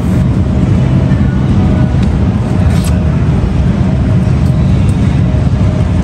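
A steady low rumble with no breaks, with faint thin tones in the background.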